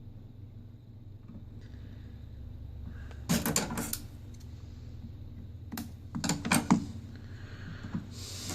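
Light clicks and clatters from handling a phone and small repair tools on a workbench, in two short clusters about three seconds in and around six seconds, over a steady low hum.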